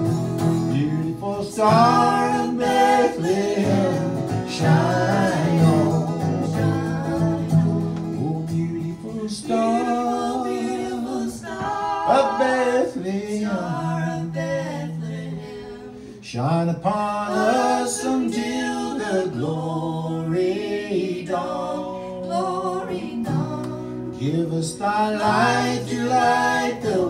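Three voices, two women and a man, singing together in harmony to an acoustic guitar, with a brief softer moment near the middle.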